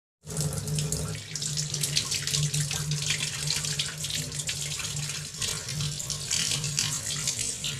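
Tap water running steadily into a stainless-steel sink, splashing over hands and a handful of green Indian olives as they are rubbed clean. It starts abruptly a moment in.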